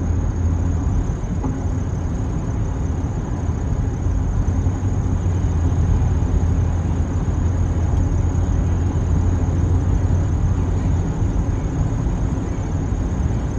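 A car driving, heard from inside the cabin: steady engine and road noise with a low drone.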